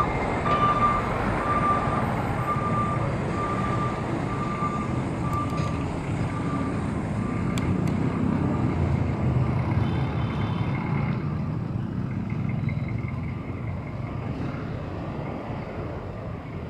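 Road traffic noise from passing vehicles. A reversing beeper sounds about twice a second over the first few seconds and fades away.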